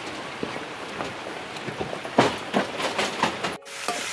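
Kitchen knife cutting something held in the hand, a string of crisp cutting clicks that grow louder after about two seconds. Near the end it gives way to a steady sizzle of onions frying in oil in a kadai.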